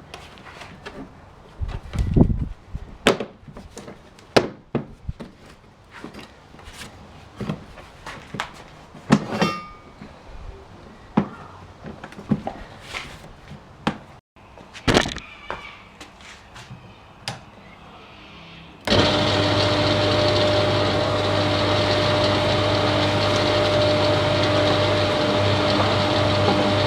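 Clattering handling of hard parts, with many sharp knocks and clacks. About 19 seconds in, the Ryobi chipper-shredder's motor switches on abruptly and runs with a steady hum.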